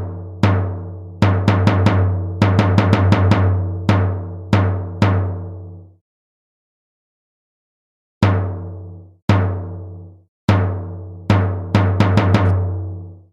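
A deep, pitched drum struck in a series of hits, some coming in quick clusters, each ringing and fading away. It stops for about two seconds midway, then a second run of hits follows.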